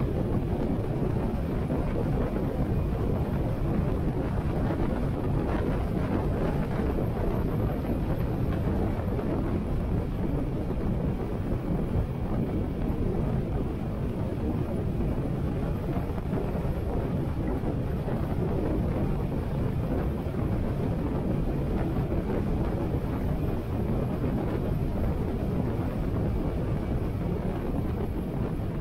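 Steady wind rushing over a helmet-mounted microphone at riding speed, with a Harley-Davidson Sportster 883's V-twin engine running underneath.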